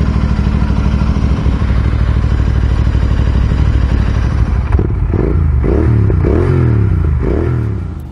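Royal Enfield Continental GT 650's parallel-twin engine, fitted with an aftermarket exhaust, idling steadily, then blipped on the throttle several times, the revs rising and falling, from about five seconds in. The sound fades away near the end.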